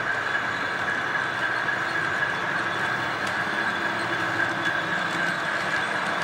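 Model train running along the layout's track: a steady high whine with faint ticking of wheels over the rails.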